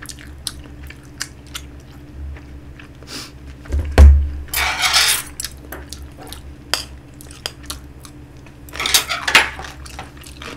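Spoon clicking and scraping against a plate of fried rice while eating, in scattered light clicks. There is a heavier thump about four seconds in, and two short noisy bursts, one just after the thump and one near the end.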